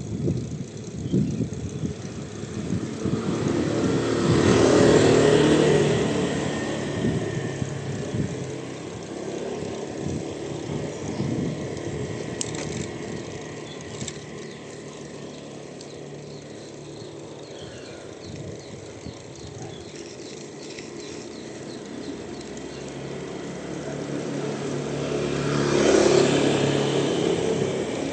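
Two motor vehicles passing close by, the first about five seconds in and the second near the end, each swelling up and fading away over a steady background of road and wind noise.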